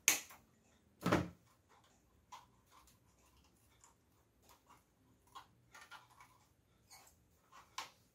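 Two sharp snaps of pliers clipping resistor wire leads about a second apart, followed by faint scattered clicks and rustling as the wires and resistors are handled, with one more sharp click near the end.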